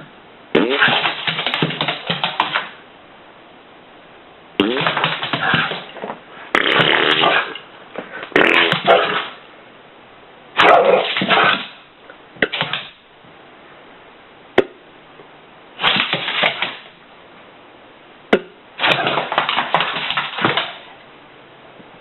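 A series of fart sounds from an animal: eight blasts of one to two seconds each with pauses between, plus a couple of short sharp clicks.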